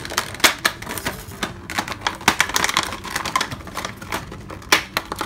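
Clear plastic packaging crinkling and crackling as hands handle and pull at it, an irregular run of sharp crackles several times a second.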